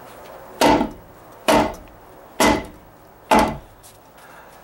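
Claw hammer striking a sawn-through, dry-rotted 2x6 wood stud four times, about one blow a second, knocking the cut section loose from its nails.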